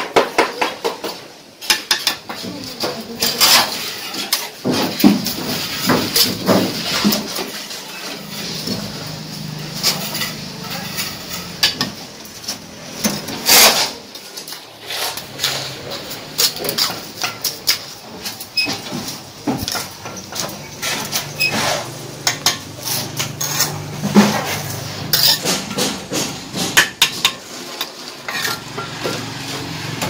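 Steel bricklaying trowel clinking and scraping against mortar and hollow clay bricks, with irregular sharp taps as bricks are set in place.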